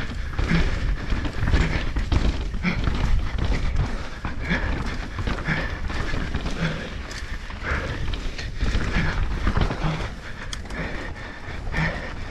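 Downhill mountain bike ridden fast over rough ground: a steady rumble of tyres, suspension and chain clattering, with wind buffeting the camera's microphone. Short sounds recur about once a second.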